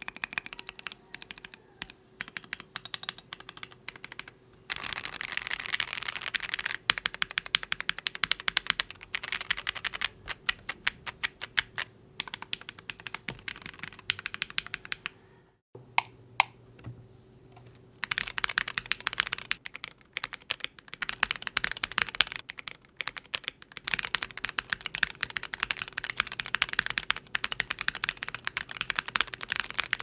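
Akko ACR Pro Alice Plus mechanical keyboard with SAL-profile keycaps typed on in fast runs of keystrokes, with short pauses between runs and a brief break about 15 seconds in.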